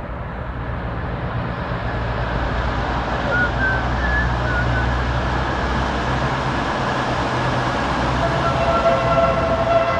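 Vehicle running with a steady low drone under a rush of noise that grows louder. About eight and a half seconds in, a Fiat Doblo's aftermarket 'Ferrari' horn starts a steady blare of several pitches at once, like a train horn.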